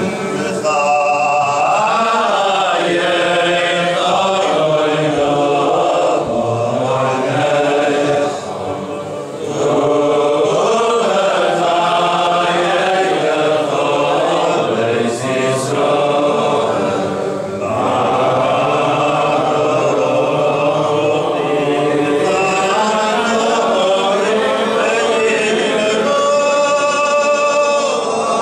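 Men's voices chanting the Selichot penitential prayers in Hebrew without instruments, a continuous sung chant with a brief lull about eight seconds in.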